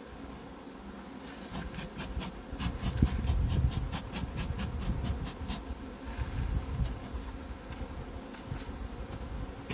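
Honeybees buzzing over an open hive, while a bee smoker's bellows is pumped in quick puffs, about four a second, for a few seconds starting about one and a half seconds in.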